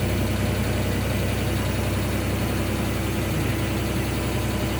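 Diesel common rail injector test bench running a leak test: a steady mechanical drone with a fast, even pulsing as the rig pressurises and drives the injector.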